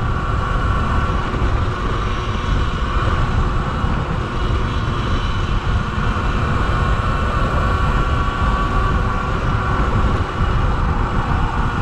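Sur-Ron electric dirt bike riding along, its motor giving a steady high whine under heavy wind rush on the microphone.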